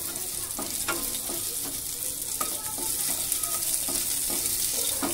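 Whole cumin, bay leaves and chillies sizzling in hot mustard oil, with a wooden spatula scraping across the pan every second or so as they are stirred: a dal tempering (phoron) being fried.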